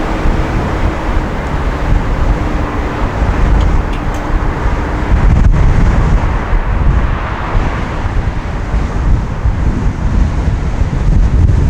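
Wind buffeting the microphone of a camera mounted on the roof of a moving van, with road and traffic noise underneath. A faint steady hum runs through the first half and fades out about halfway.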